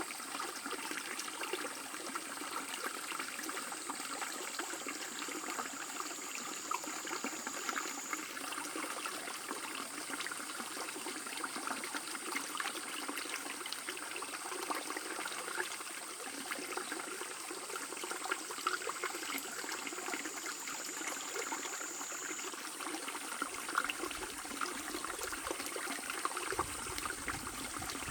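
Shallow stream babbling over stones: a steady rush of running water full of small gurgles and splashes.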